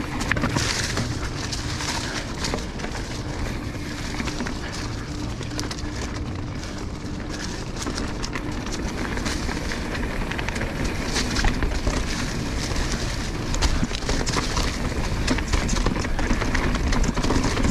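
Mountain bike rolling down a dirt trail: a steady rumble of the tyres over dirt and rock, with the bike rattling and clattering over many small bumps.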